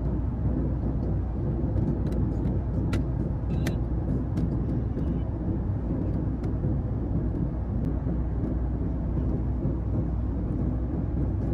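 Steady low rumble of cabin noise inside a Boeing 737 MAX 8 airliner, with a few faint clicks over it.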